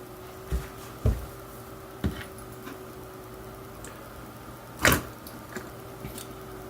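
Scattered light clicks and taps of a screwdriver and small plastic drone parts being handled, about five in all, the loudest knock about five seconds in, over a steady faint hum.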